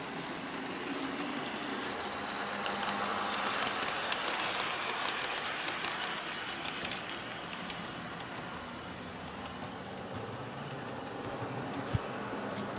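OO-gauge Bachmann Class 158 model train running on layout track: a steady whirr of motor and wheels with light clicking, louder for a few seconds as it passes close. A single sharp click near the end.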